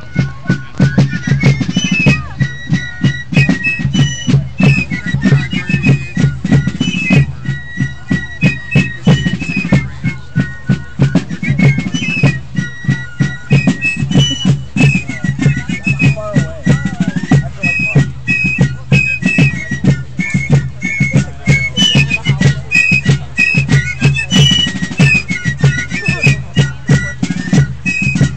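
Patriotic march music: a high piped melody of held notes over a quick, steady drum beat.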